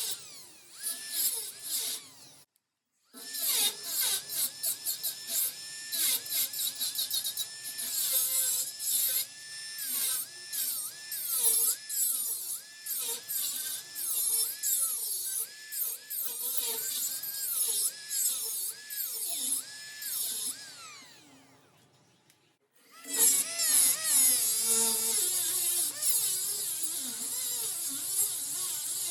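Angle grinder grinding steel. The motor whine dips in pitch each time the disc is pressed into the work and recovers when it is eased off, with a loud hiss of grinding on top. It stops briefly near the start, winds down about two-thirds of the way through, then starts again.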